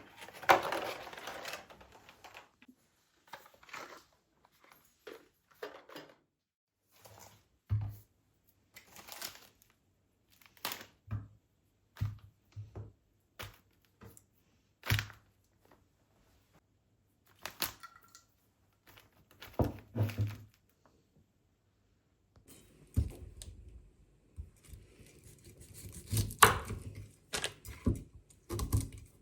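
Irregular household handling sounds: short knocks, clicks and thunks of objects being picked up and set down, with some rustling or crinkling in between.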